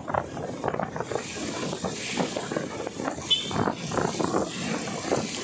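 Wind buffeting and road noise on a moving motorcycle, heard from the rider's seat in traffic, with one brief high chirp a little past the middle.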